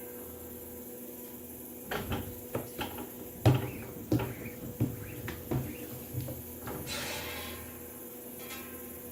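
A run of irregular knocks and clatters, loudest about three and a half seconds in, over a steady electrical hum.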